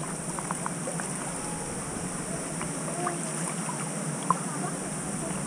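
Pool water sloshing and lapping against a camera held at the surface as a person moves through it, with small scattered splashes and drips.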